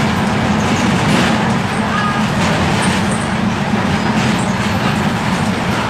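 Mercedes-Benz OF-1721 Bluetec 5 bus's diesel engine running with a steady low drone.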